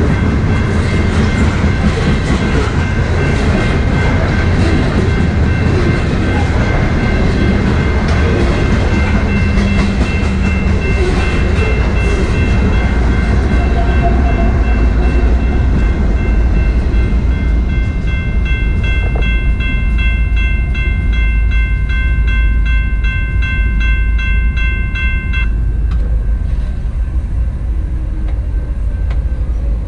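A loaded coal train rolling past, its cars making a steady heavy rumble on the rails. Over it, a high metallic ringing of several pitches grows from about eight seconds in, pulses rapidly for several seconds, and cuts off suddenly about 25 seconds in.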